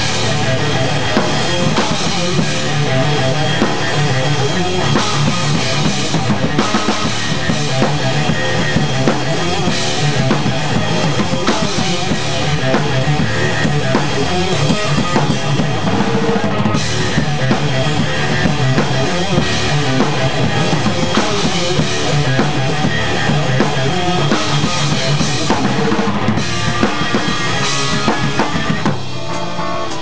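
Rock drum kit with Sabian cymbals played hard in a fast punk/post-hardcore song, with bass drum, snare and cymbals over a full band. Near the end the drums stop and a sustained electric guitar carries on alone.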